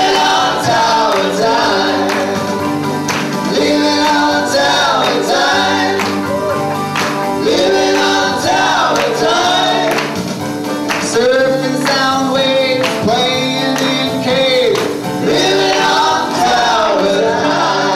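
Several voices singing a song together over steady live band backing.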